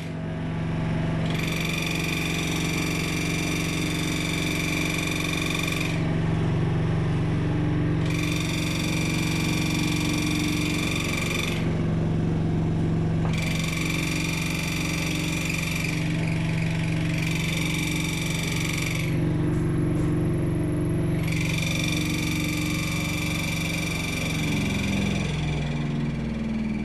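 Haier HW80-BD14756 washing machine running: a steady low hum, with a high-pitched whine that switches on for a few seconds and off again, five times over. Near the end the hum shifts in pitch.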